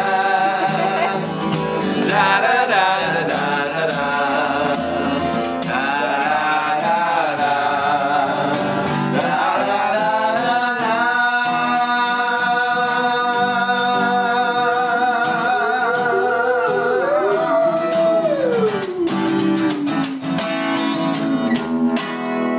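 Male voices singing wordless vocals over a strummed acoustic guitar. About halfway through they hold one long note, then the sung line slides down in pitch near the end.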